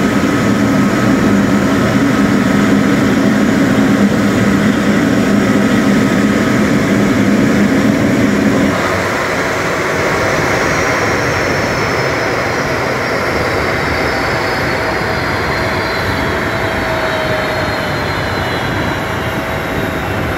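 Boeing 777-300ER's GE90 turbofan engines running at the gate. A low hum cuts off about nine seconds in, then a high whine falls slowly in pitch as the engines spool down after shutdown.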